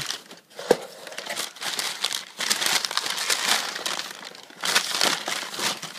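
Brown kraft packing paper crumpling and rustling in irregular bursts as hands pull it out of a cardboard shipping box, with one sharp tap under a second in.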